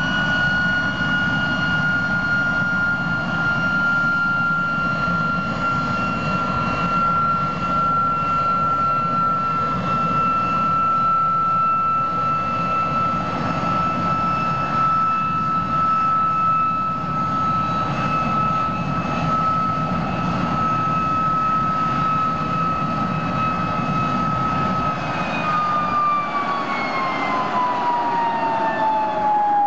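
Klimov VK-1 centrifugal-flow turbojet running on a test stand: a loud, steady jet rush with a strong high whine. About 25 seconds in, the whine starts to fall steadily in pitch as the engine slows.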